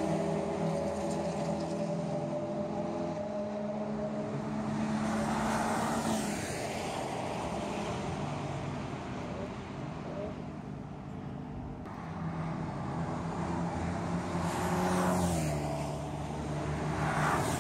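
Track cars running at speed along a race circuit's main straight: engines held at high revs, with a loud rush as a car goes by about six seconds in, and another car's engine note dropping in pitch as it passes about fifteen seconds in.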